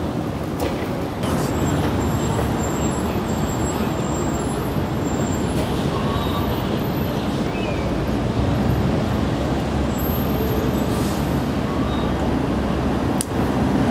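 City street traffic noise with a vintage PCC streetcar running toward the listener on its rails, its rumble slowly growing louder.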